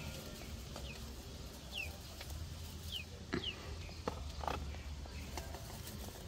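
Dry grass nesting material rustling as a hand feels through a woven bamboo basket nest, with a couple of light knocks. A few short, high, falling bird chirps sound around the middle.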